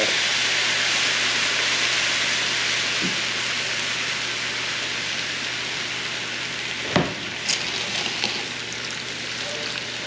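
Warm water poured slowly into a hot skillet of browned flour for brown gravy, sizzling and hissing as it turns to steam, the sizzle slowly dying down. A single sharp knock about seven seconds in, followed by a few lighter clicks.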